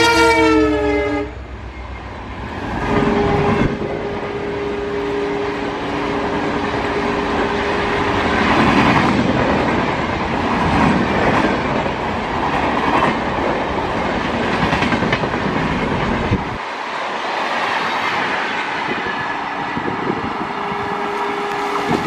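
EMD-built WDP-4B diesel locomotive's multi-tone horn blaring as it passes, its pitch sagging before it cuts off about a second in. Then the Humsafar Express coaches rush by at speed, wheels clattering over the rail joints, until the deep rumble drops away about two-thirds of the way through.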